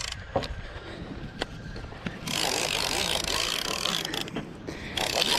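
Spinning fishing reel being cranked to reel in a hooked fish: the reel's gears whir, with a few sharp clicks in the first couple of seconds. Louder stretches of rushing noise come about two seconds in and again near the end.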